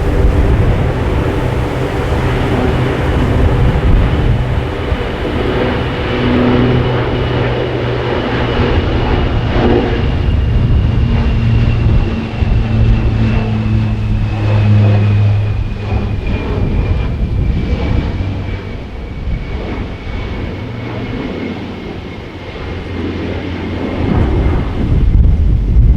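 Large military aircraft's engines running, with low steady engine tones and a thin high whine that slowly falls in pitch throughout.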